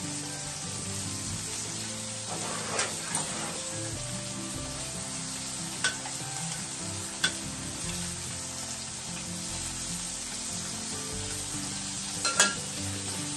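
Flour-dredged cod fillet frying in oil on a hot Blackstone gas griddle, a steady sizzle, with a few sharp clicks of metal tongs, the loudest near the end.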